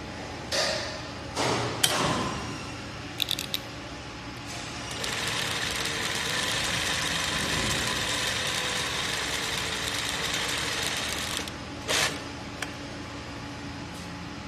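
Zoyer ZY20U43 industrial zigzag sewing machine stitching denim: a steady run of about six seconds starting some five seconds in, preceded by a few short clicks and knocks, with one more knock after it stops.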